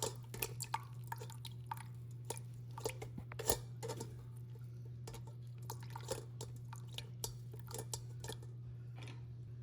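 Soft clicks, taps and scrapes of kitchen utensils on a sieve and bowl as ground karpuravalli (Indian borage) leaf pulp is strained for its juice. The taps are dense at first and thin out after about four seconds, over a steady low hum.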